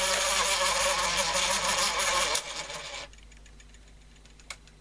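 Walter 101 reel-to-reel tape recorder running with a loud, steady, crackly noise that cuts off suddenly about two and a half seconds in, followed by a single click near the end.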